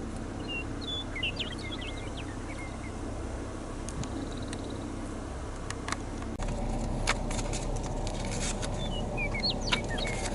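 Small birds singing, short high chirps and warbling notes in two bouts, one early and one near the end, over a steady low rumble of background noise. A few sharp clicks in the second half.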